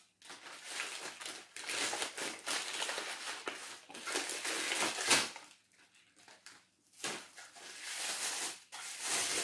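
Crinkly toy packaging wrapper being handled and unwrapped, an irregular crinkling and rustling that stops for a short pause a little past halfway, then starts again.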